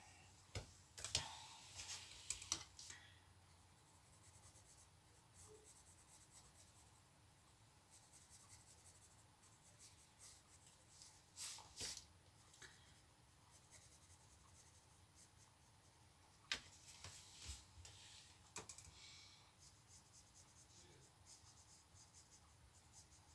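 Coloured pencils scratching faintly on paper, shading and blending over a dried watercolour painting. The strokes come in short spells: a cluster in the first few seconds, another near the middle and more about three-quarters of the way through.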